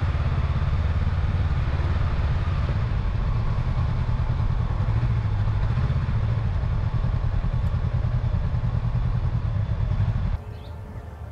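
A motorcycle on the move: steady engine drone with wind rush on the microphone. It cuts off abruptly about ten seconds in, leaving much quieter surroundings.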